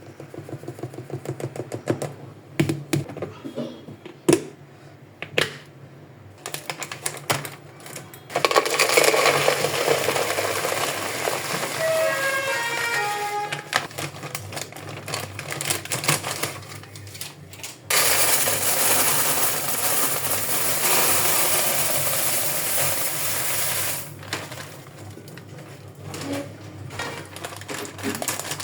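Dry groceries poured into plastic storage containers: two long, loud, steady pours of grain, about eight and eighteen seconds in. Before them come scattered clicks and knocks of containers and lids being handled.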